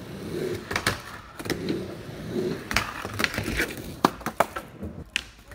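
Skateboard wheels rolling back and forth across a mini ramp, the rumble swelling and fading with each pass, broken by sharp clacks of the board and trucks on the ramp. A little after four seconds comes the loudest clack as the board comes out from under the rider and rolls away.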